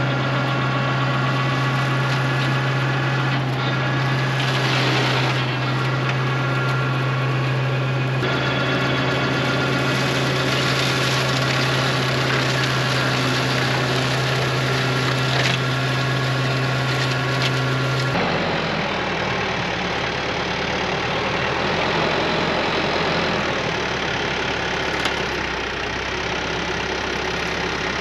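Diesel tractor engine running a PTO-driven flail mower through brush and dry grass, a steady drone with a strong low hum. About two-thirds of the way through it breaks off abruptly into a lower, less even tractor engine sound.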